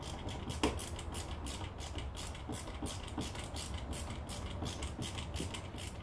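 A Phillips screwdriver working a small screw in a plastic door lock actuator housing, making a run of quick, light clicks, several a second.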